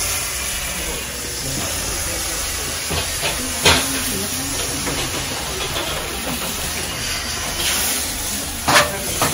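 Steady hiss of cooking at a row of portable gas burners under hopper pans, with batter steaming in the hot pans. Two sharp knocks come about four seconds in and near the end.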